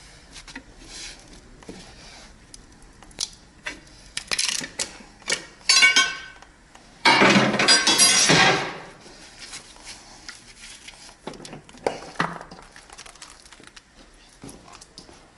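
Hand tools and metal engine parts clinking and knocking during engine disassembly work at the compressor, with a louder rasping noise lasting over a second about seven seconds in.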